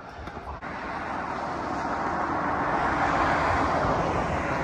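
Distant engine noise of something passing by: a steady rushing sound that swells to a peak about three seconds in and then slowly fades.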